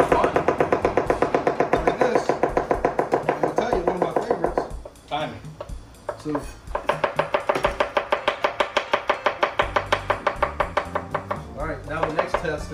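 Chef's knives rapidly chopping garlic cloves on cutting boards, about five strokes a second, with a break of about two seconds partway through before the chopping resumes.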